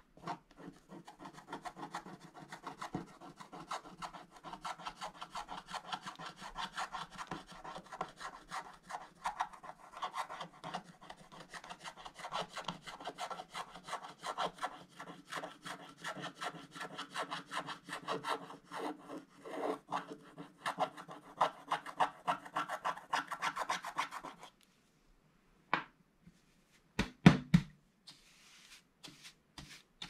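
Wooden stylus scratching the black coating off a scratch-art page in quick, dense strokes. The scratching stops near the end, a few sharp knocks follow, then a brush sweeps faintly across the page.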